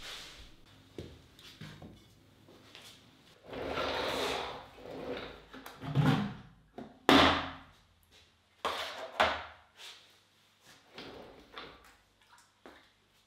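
Snap-on lid of a plastic glaze bucket being worked loose and pulled off: a series of sharp plastic knocks and pops, the loudest about seven seconds in, with a short rushing scrape a few seconds earlier.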